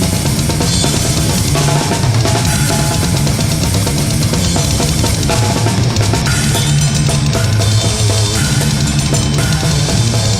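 Death/doom metal music: a drum kit with bass drum, snare and cymbals under heavy, sustained low notes that change every second or so, loud and unbroken.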